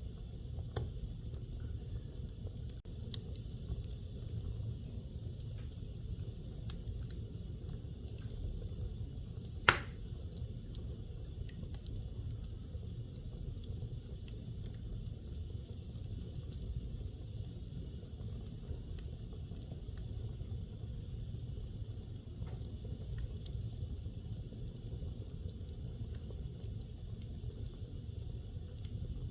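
Wood fire burning in a fireplace: a steady low rumble of flames with scattered faint crackles, and one sharp pop about ten seconds in.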